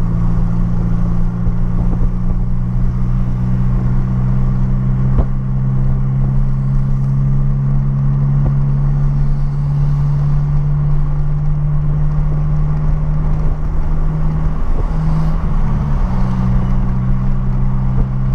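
Renault Clio 1.6 16V (K4M) four-cylinder engine, heard from inside the cabin, running at a steady cruise with a steady drone. Its pitch briefly wavers about fifteen seconds in, then settles again.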